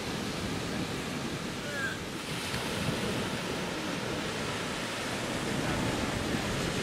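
Surf breaking on a sandy beach: a steady wash of waves.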